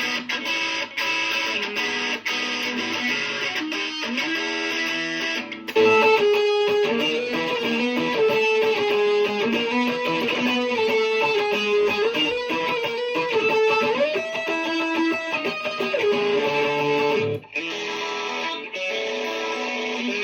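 Layered guitars playing an instrumental arrangement: picked and strummed chords, then from about six seconds in a sustained melody line carries the tune over them, until a short break near the end brings the chordal part back.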